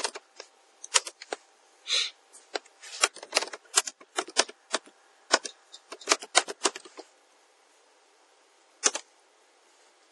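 Computer keyboard being typed on, sharp keystroke clicks in quick runs for about seven seconds, then a pause and a single keystroke near the end.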